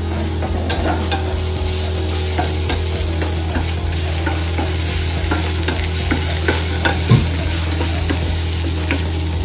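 Baby carrots sizzling as they sauté in a skillet over a gas flame, stirred with a wooden spatula that knocks and scrapes against the pan now and then, one sharper knock about seven seconds in.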